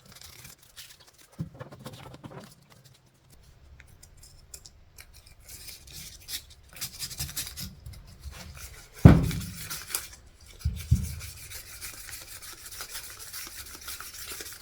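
Rolled-up 500-grit sandpaper rubbed by hand against a VW piston's wrist pin, a scratchy back-and-forth rasping as the crud is sanded off. A loud knock comes about nine seconds in and a smaller one about two seconds later.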